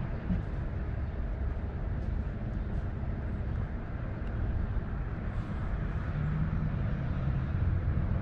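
Chevrolet Silverado 5.3 L V8 running steadily with a low rumble; the engine has a misfire, traced to cylinder 1.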